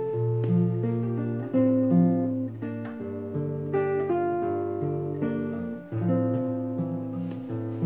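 Nylon-string classical guitar played fingerstyle: a slow melody over a bass line, plucked notes left ringing into each other.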